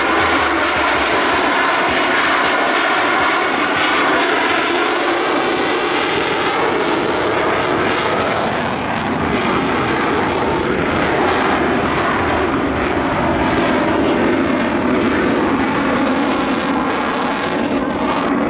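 Jet engines of Blue Angels F/A-18 Super Hornets flying past, loud and steady, the tone slowly shifting as they pass.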